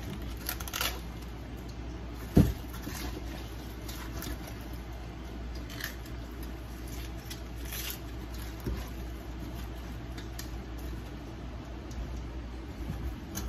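Crisp crunching and snapping of raw cabbage being cut and broken into pieces by hand, the pieces dropping into a stainless steel bowl, with one sharp knock about two and a half seconds in. A steady low hum runs underneath.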